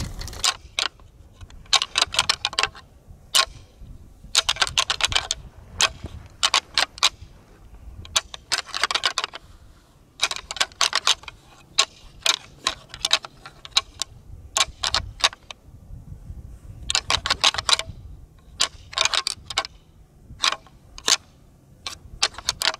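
A pair of deer antlers rattled and clacked together, a hunter's rattling call imitating sparring bucks: about a dozen bursts of sharp clicking tines, each up to a second long, with short pauses between.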